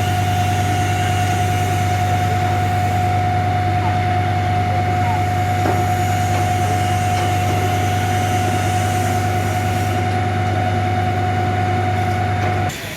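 Heavy truck diesel engine running steadily, with a constant high whine over its low drone. It cuts off suddenly near the end.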